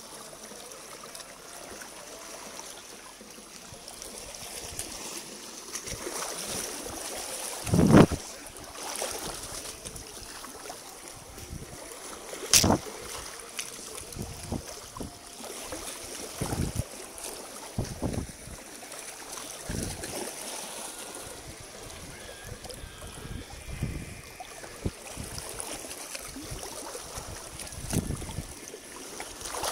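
Shallow, rocky stream water running, with irregular sloshes and splashes of someone wading through it. There is a louder thud about eight seconds in, and a sharp click a few seconds later.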